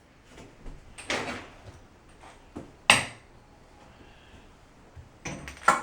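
Short handling noises in a small room: a scraping rustle about a second in, a sharp knock or click just under three seconds in, then more clicking and clattering near the end.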